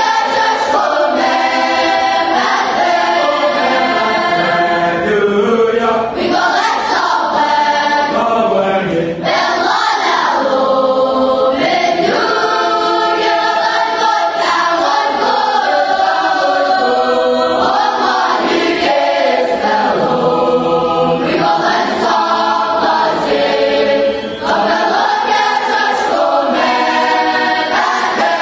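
A young girls' church choir singing a hymn together, in continuous sung phrases with brief breaks between them.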